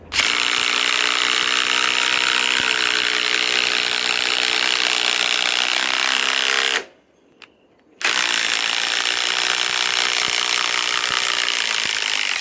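Ryobi PSBIW25 compact impact wrench hammering as it drives an 8-inch lag screw into wood. It runs in two long bursts, about seven seconds and then about four, with a one-second stop between them.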